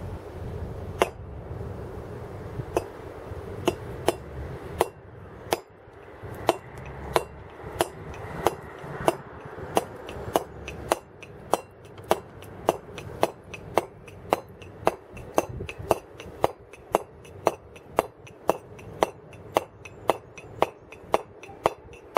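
Round wooden carving mallet striking a chisel held against a block of stone, chipping away stone while roughing out a carving. The blows are irregular at first, then settle into a steady rhythm of about two a second.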